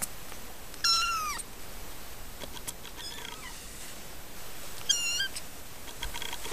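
Three-week-old Siamese kittens mewing: a high-pitched falling mew about a second in, a faint one near three seconds, and a short wavering mew about five seconds in.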